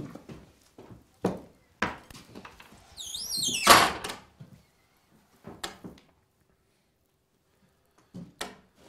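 Footsteps on a wooden floor, then a wooden plank door on iron strap hinges swung shut about three and a half seconds in: a wavering hinge squeak that ends in a sharp thud. A few more short knocks follow near the end.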